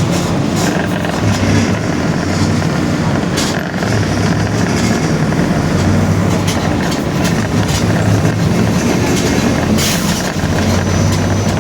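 Mercedes-Benz OF-1721 bus's four-cylinder diesel running steadily on the move, heard inside the cabin, with the differential growling and scattered body rattles and clicks.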